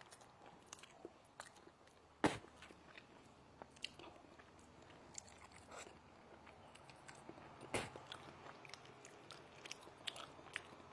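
A person chewing and biting food close to the microphone, with many small wet mouth clicks. Two louder sharp clicks come about two seconds in and again near eight seconds.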